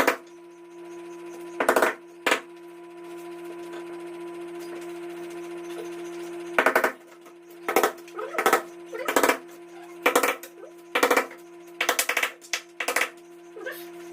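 A series of about ten sharp, rattling knocking bursts from installation work on a wall, irregularly spaced and coming faster in the second half, over a steady background hum.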